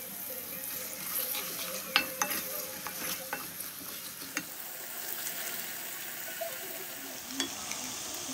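Sliced onions sizzling in hot oil in a metal karahi as a wooden spoon stirs them, with a few sharp knocks of the spoon against the pan; the loudest comes about two seconds in.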